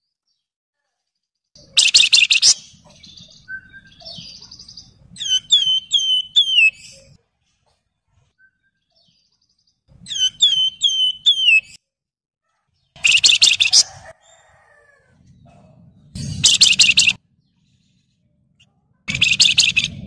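Wergan Jawa (Javan fulvetta) calling: four loud, harsh, buzzy chatters, with two runs of quick, high, down-slurred whistled notes between them and short silences in between.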